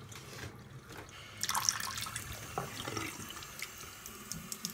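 Water running from a tap into a sink, starting about a second and a half in, with small irregular splashes.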